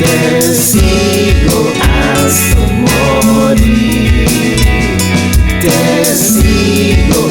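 Song passage of layered singing voices in harmony over a steady beat.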